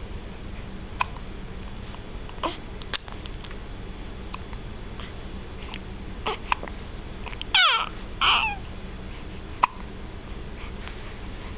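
Hiccups: short, sharp hics scattered through, about six of them. A little past halfway come two louder, pitched vocal sounds that slide down in pitch.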